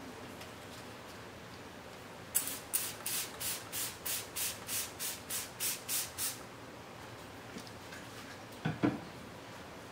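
Trigger spray bottle of ethanol pumped in quick succession, about a dozen short hissing sprays at roughly three a second, then two light knocks near the end.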